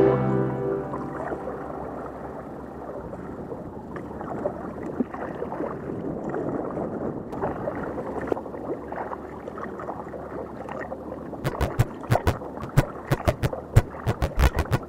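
Water gurgling and splashing around a kayak as it is paddled along a creek. About three-quarters of the way through, a run of irregular sharp knocks begins.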